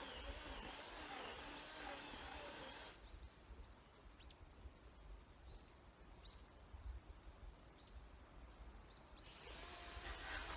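Quiet outdoor ambience with a faint low rumble, and a bird giving several short chirps in the quieter middle stretch.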